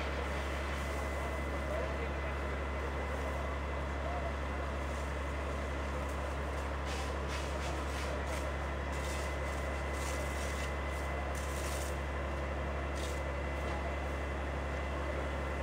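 Fire engine's engine running steadily, a low unbroken drone, with voices from a crowd of onlookers.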